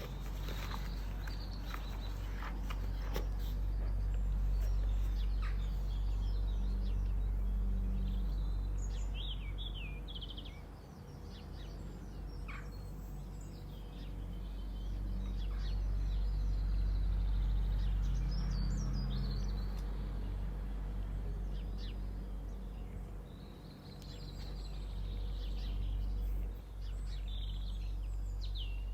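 Steady low background rumble with a few short bird chirps now and then, and some light clicks near the start.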